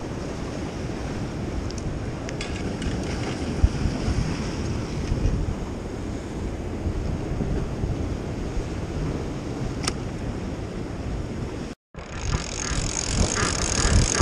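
Wind buffeting the microphone over surf washing against jetty rocks, a steady rushing noise. Near the end it drops out for a moment and comes back with more hiss.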